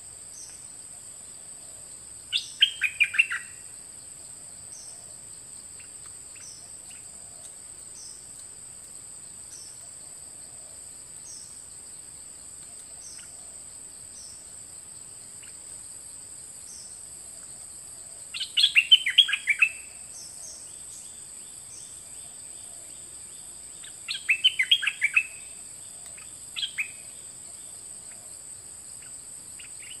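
A caged 'dok taeng' bulbul sings short bursts of quick, bright notes: three phrases, a few seconds in, past halfway and again soon after, with a brief extra call after the last. A steady high insect buzz runs underneath.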